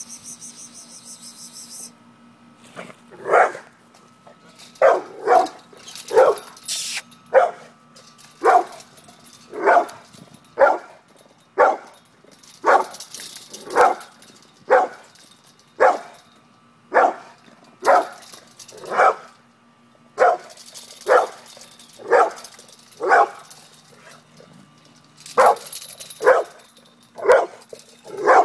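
Brindle pit bull barking over and over: a long run of single barks, about one to two a second, starting about three seconds in.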